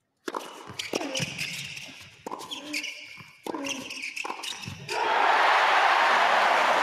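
A short doubles rally: the tennis ball struck by rackets several times with sharp pops, with shoe squeaks or players' cries between the shots. About five seconds in, the home crowd breaks into loud, sustained cheering and applause as the point is won.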